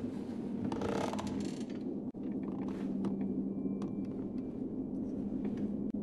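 A steady low mechanical hum with scattered clicks and creaks, and a brief rush of noise about a second in.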